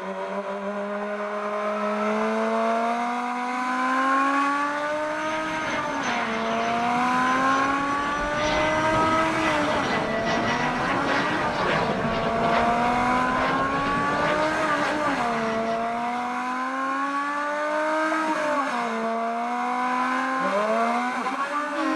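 Car engine pulling hard through the gears: the engine note climbs steadily, then drops sharply at each gear change, several times over. Road and wind rush swells in the middle.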